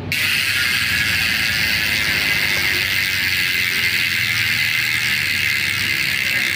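Nautilus Clickr 148 mountain-bike rear hub freewheeling as the wheel spins against the hand-held freehub, its pawls giving a fast, continuous ratcheting buzz that starts suddenly and holds steady. The hub has been upgraded for a loud "wasp" buzz.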